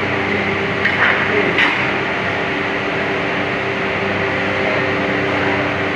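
A machine running steadily with a constant hum, with a couple of brief scraping sounds about a second in.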